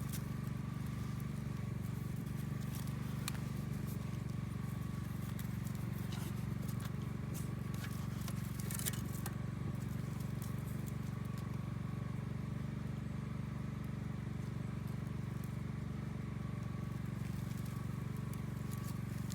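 Wood campfire crackling, with a few scattered sharp pops over a steady low rumble.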